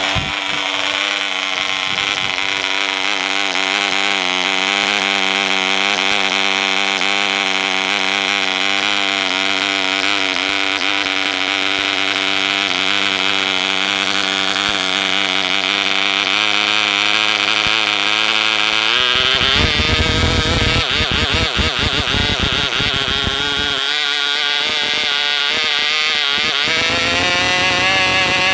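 ETA 1.5 cc prototype model diesel engine, a small two-stroke, running on a test stand with its propeller turning, on its very first test run: a steady, high-pitched buzz. About two-thirds through, the pitch drops and it runs rough and uneven for several seconds. Near the end it picks up speed and smooths out again as it is adjusted by hand.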